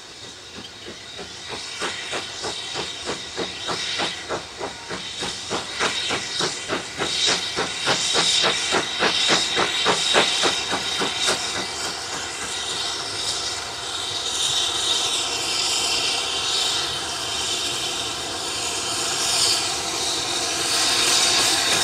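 Steam locomotive 70000 Britannia, a BR Standard Class 7 two-cylinder Pacific, working a train as it approaches and growing steadily louder. Its exhaust beats come in a fast even rhythm, and about halfway through they blur into a steady rushing hiss of steam.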